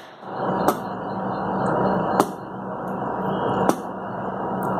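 Tip of a walking stick tapping on a hard tiled floor three times, evenly about a second and a half apart, over a steady background hiss.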